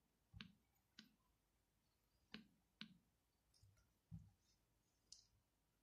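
About six faint clicks from a laptop being worked by hand, at irregular intervals, with a softer low thump about four seconds in.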